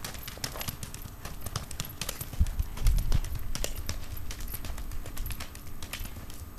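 Hoofbeats of a Tennessee Walking Horse gelding gaiting under a rider on hard dirt and gravel, a quick run of uneven clops. A few heavier low thumps come about two and a half seconds in.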